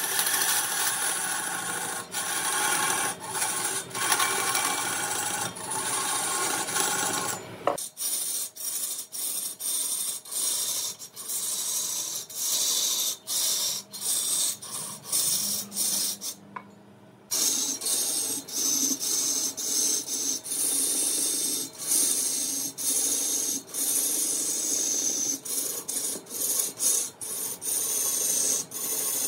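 A hand tool scraping wood in quick repeated strokes. The sound changes character about eight seconds in and breaks off briefly around the middle.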